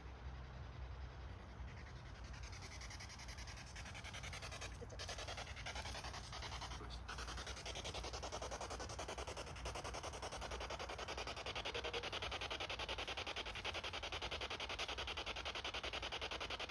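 Electronic ghost-hunting noise machine putting out a fast-pulsing static hiss, which builds from about two seconds in and turns brighter and a little louder near the end.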